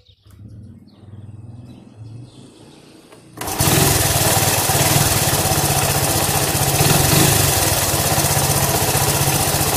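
The single-cylinder four-stroke engine of a 1984 Honda ATC 125M three-wheeler being cranked over for about three seconds, then catching about three and a half seconds in and running steadily.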